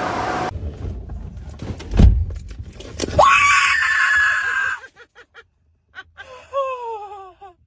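A thud, then a loud scream that jumps up in pitch and is held for about a second and a half, followed by a shorter cry falling in pitch near the end.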